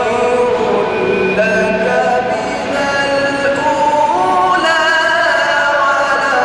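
A man reciting the Quran in melodic tajweed style, holding long, ornamented notes that slide between pitches.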